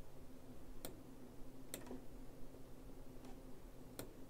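Faint clicks of a computer mouse, three or four of them about a second apart, over a faint steady low hum.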